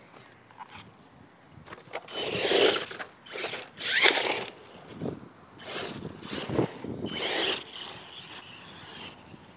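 Traxxas Mini E-Revo electric RC monster truck driving on a dirt track: several bursts of throttle, its motor whirring and tyres scraping over the dirt, between about two and eight seconds in.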